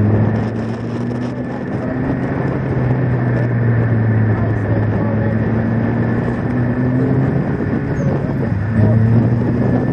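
Supercharged Honda four-cylinder engine of an Ariel Atom pulling on the move, its pitch creeping steadily upward, dipping briefly near the end and climbing again, with wind rushing over the open car.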